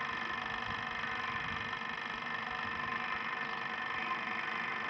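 Steady hum of an electric motor running, with several constant whining tones and no change in speed.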